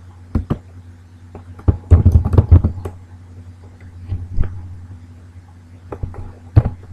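Keystrokes on a computer keyboard: scattered clicks, with a quick run of them about two seconds in and single taps after, over a low steady hum.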